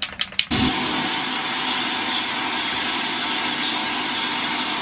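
Aerosol can of Rust-Oleum white spray paint hissing in one long, steady spray during a first coat. The spray is preceded by a few quick rattling clicks about half a second long.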